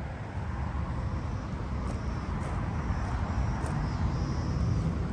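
Steady low outdoor rumble, with a few faint, brief high chirps over it.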